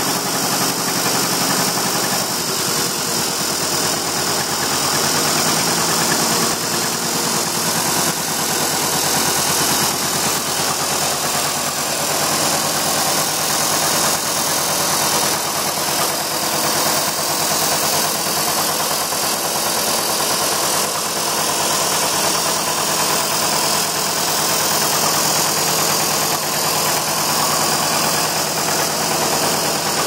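John Deere 40 crawler bulldozer's two-cylinder gasoline engine running steadily, freshly started.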